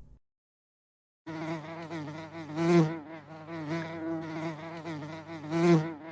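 Honeybee buzzing: a steady, slightly wavering drone that starts about a second in and swells louder twice.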